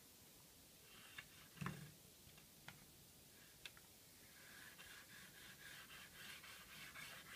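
Faint rubbing of a small cleaning pad scrubbed along model railway rails, with a few light clicks, to clear dust and dirt from the track.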